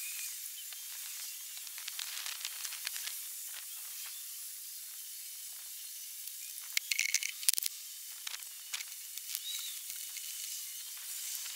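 Outdoor background sound sped up along with the time-lapse footage, heard as a steady high hiss with scattered crackles and clicks. A brief burst of louder clicks and short chirps comes about seven seconds in.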